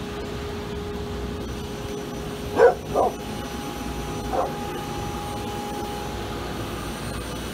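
A dog barks three times, twice in quick succession about two and a half seconds in and once more about a second later, over a steady hum.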